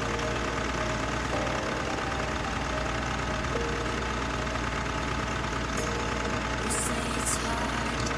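Mitsubishi Triton's 4N15 diesel engine idling steadily, with a few light clicks near the end.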